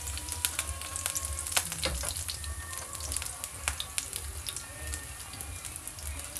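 Minced garlic sizzling in a little hot oil in a pan, crackling steadily with frequent sharp pops of spattering oil.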